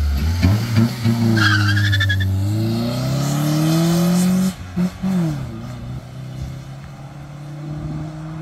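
Honda Accord's 2.2-litre F22 four-cylinder with a cheap aftermarket intake, accelerating hard: the intake and engine note climbs for about four seconds, drops sharply, then settles lower and fainter as the car pulls away. A short tire squeal comes about a second in.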